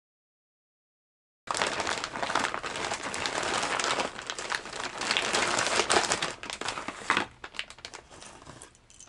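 Complete silence for about a second and a half. Then a clear plastic zip-top bag crinkles and rustles as it is handled, with many small crackles. The crinkling thins to scattered crackles over the last two seconds.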